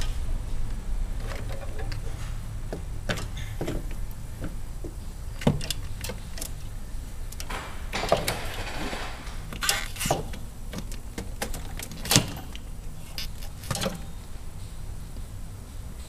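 Scattered clicks, knocks and a brief scrape as a Buick Powermaster brake booster unit is pulled and twisted off the firewall by hand, over a steady low hum. The sharpest knock comes about twelve seconds in.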